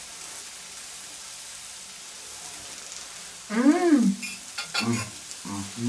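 Stir-fried noodles, shrimp and vegetables sizzling steadily in a large black grill pan over glowing embers. About three and a half seconds in comes a short rising-and-falling vocal sound, followed by a few light clicks and knocks.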